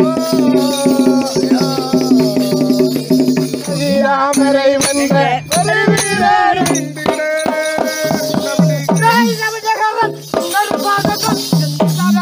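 Tamil folk-theatre (koothu) music: a voice sings a long, bending melody over a held low drone, with jingling percussion and sharp beats throughout.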